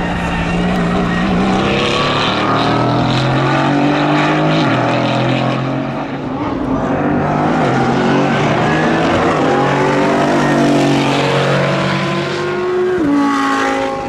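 Mercedes-AMG GT4's 4.0-litre twin-turbo V8 accelerating hard on track, its pitch climbing steadily and dropping sharply at each upshift, a few times.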